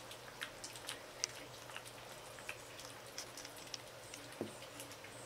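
Young otters eating chopped raw salmon: an irregular patter of small, wet chewing and smacking clicks, with one brief lower sound about four seconds in.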